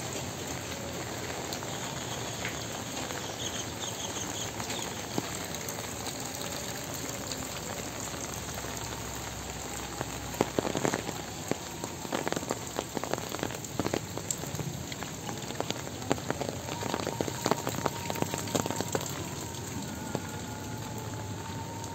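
Steady rain falling on a wet lane and vegetation, an even hiss, with irregular sharp, close taps coming in from about halfway through until near the end.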